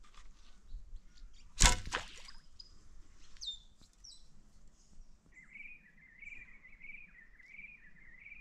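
A bow shot once, about a second and a half in: one sharp loud snap of the string and arrow, the bow rigged with fishing line for bowfishing. In the second half a bird calls, a warbling phrase repeated again and again.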